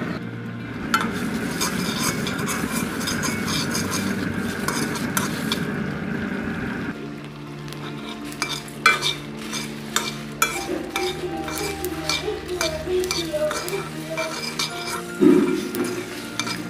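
Sliced elephant apple simmering and bubbling in its sugar syrup in a pot, giving a steady hiss; about seven seconds in this gives way to a metal spoon scraping and clicking against a pan as panch phoron, dried red chillies, cinnamon and cardamom are stirred and fried, with a louder knock near the end.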